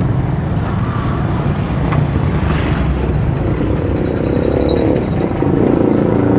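Steady rumble of wind and road noise picked up by a handlebar camera on a moving bicycle, with motor traffic around. A motor vehicle's engine grows louder over the last couple of seconds.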